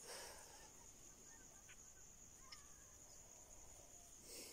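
Near silence: a faint, steady high-pitched chirring of crickets, with a few faint ticks.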